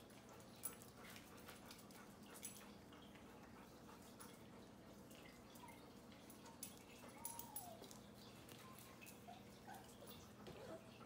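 Faint clicking of dogs' claws on a tile floor as golden retriever puppies play, with a few faint short puppy whimpers in the second half.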